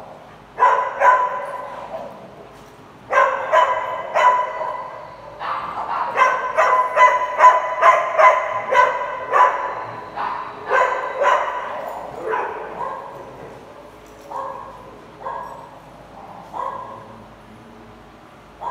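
Dogs barking over and over: a few barks, then a quick run of barks about six to ten seconds in, then fainter barks spaced further apart toward the end.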